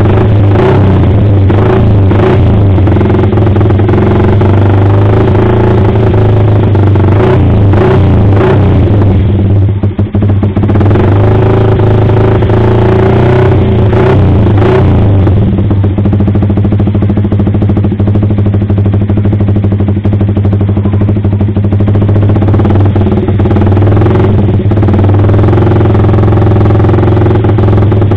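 Yamaha R15 V3's single-cylinder engine running at idle through an aftermarket AR Austin slip-on exhaust, a steady loud note, with a few short sharp bursts over it.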